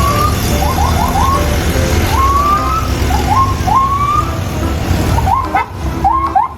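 Toy police car playing its electronic sound effect: a rumbling engine noise with short, rising siren whoops repeated irregularly.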